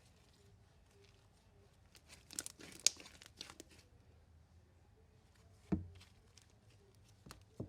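Sticky, underactivated marshmallow slime being stretched and pulled apart by hand, giving a burst of crackling, tearing clicks about two to three and a half seconds in, then a dull thump near six seconds and another near the end.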